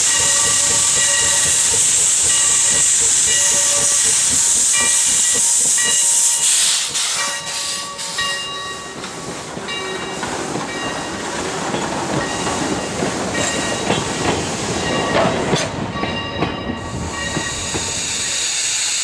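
Replica 1860s-style 4-4-0 American-type steam locomotive working hard, with a loud steam hiss over its exhaust beat and a bell ringing at a steady pace. About six and a half seconds in the hiss drops away, and the bell and running noise carry on more quietly.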